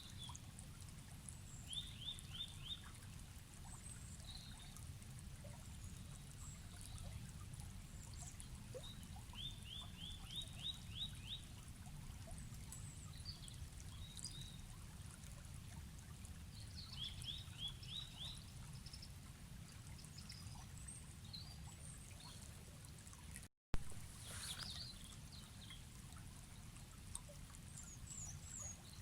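Forest river flowing with a steady low rush while songbirds call: a short run of quick rising notes, heard three times, and scattered higher chirps. About four-fifths of the way through, the sound cuts out for a moment and comes back with a sharp click.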